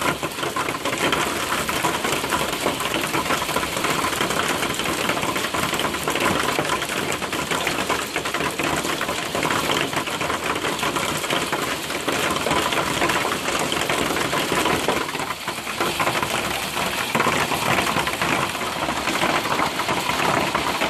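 Heavy hail pelting down: a dense, continuous clatter of large hailstones striking the roof overhead and the ground.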